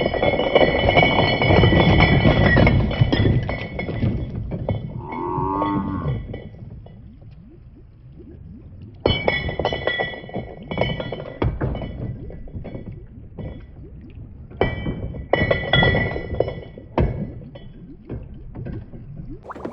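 Balls and marbles rolling and clattering down wooden and plastic marble-run tracks, with many small clinks and knocks. In three bursts, clear ringing tones sound over the rattle. About five seconds in, a short wavering, gliding tone comes in.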